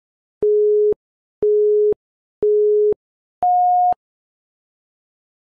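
Electronic countdown beeps: three identical short tones a second apart, then a fourth at a higher pitch, in the pattern of a start signal.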